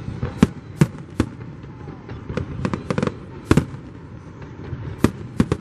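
Aerial fireworks shells bursting: a string of sharp bangs at irregular intervals, several coming in quick clusters, over a steady low background rumble.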